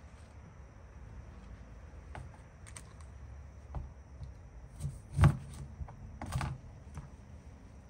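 Knife cutting limes on a plastic chopping board: a handful of scattered knocks and taps of the blade on the board, the loudest a little past the middle.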